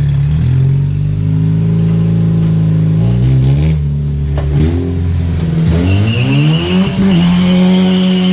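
Old Saturn car's engine revving hard. Its pitch drops about three seconds in and again a second and a half later, then climbs and holds high toward the end.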